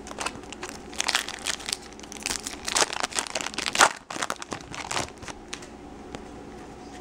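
Foil wrapper of a baseball card pack crinkling and tearing as it is opened by hand: a busy run of crackles for about five seconds that dies down near the end.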